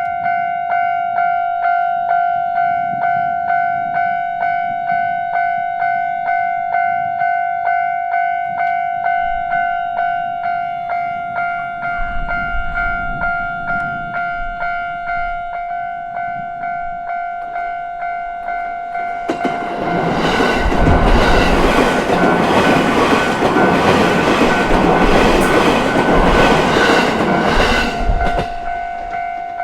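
Japanese level-crossing alarm ringing its evenly repeated electronic ding. About two-thirds of the way in, a JR Tōgane Line electric train passes over the crossing for roughly eight seconds, and its noise drowns the bell. The bell rings on after the train has gone.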